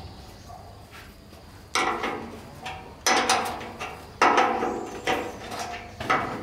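Hammer blows on metal: three heavy strikes about a second apart, each ringing on and fading, followed by lighter knocks.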